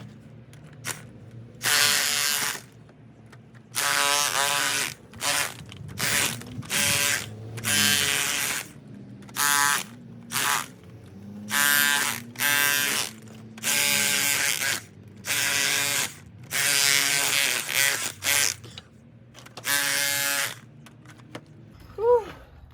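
Electric chisel hammering in repeated short bursts, about a dozen triggers of under a second to a second and a half each, as it chips the old covering off a stone wall.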